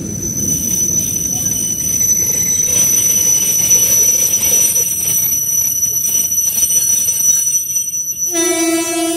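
ЭП2Д electric multiple unit pulling in along the platform and slowing to a stop, with a rumble and a steady high-pitched squeal that cut off about eight seconds in. Right after, a short horn blast on one steady note.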